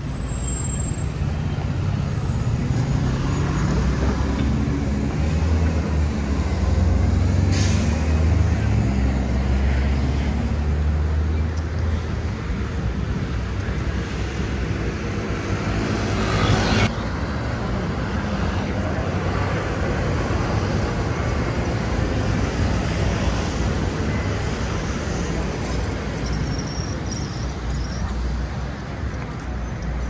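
City street traffic. A heavy vehicle's engine rumble builds and fades over the first dozen seconds, with a short hiss about eight seconds in and a longer hiss that cuts off suddenly a little past halfway.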